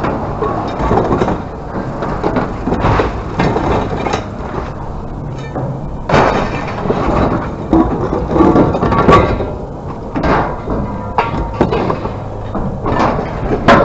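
Loud, irregular clanging and crashing of scrap metal pieces being thrown off and landing on a pile, over a steady low machine hum.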